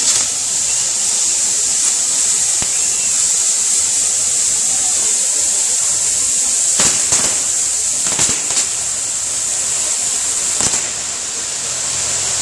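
Ground fireworks on a catherine-wheel frame spraying sparks, a steady loud hiss, with a few sharp cracks in the second half.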